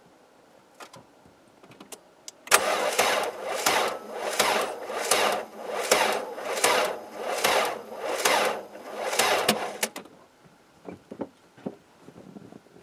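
Peugeot 205's 1.4-litre TU3 petrol engine being cranked by its starter motor in deep cold, turning over slowly and labouring in even pulses a little over once a second for about seven seconds, then stopping without catching. The battery is too weak to spin the cold engine fast enough to start it.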